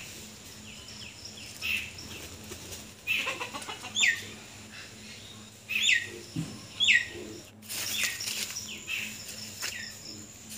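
Birds calling: a run of short chirps, each falling in pitch, repeated every second or so, with the loudest few about four to seven seconds in.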